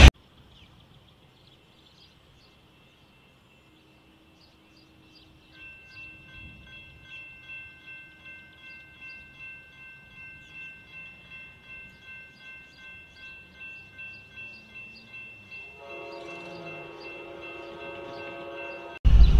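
Railroad grade-crossing bell ringing quietly at about two strokes a second, starting about five seconds in after near silence. In the last few seconds a lower, steady multi-note tone joins it.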